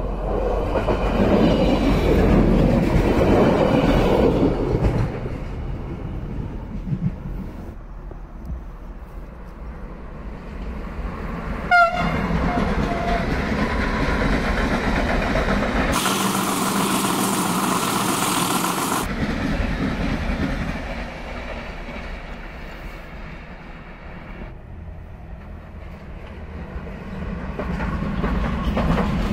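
Trains passing at a station: a regional passenger train, then freight trains hauled by ÖBB Siemens Vectron electric locomotives, wheels and wagons rumbling and clattering over the rails. A brief horn toot with a click sounds about twelve seconds in.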